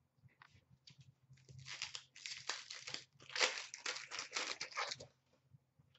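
Foil wrapper of an Upper Deck Series 2 hockey card pack being torn open and crinkled by hand, a dense crackling that starts about a second and a half in and stops about five seconds in.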